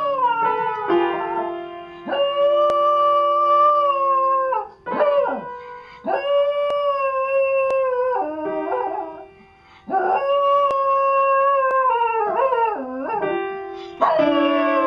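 A dog howling along to an upright piano whose keys it is pawing: a series of long held howls, each about two seconds and falling away at the end, with single piano notes ringing between them.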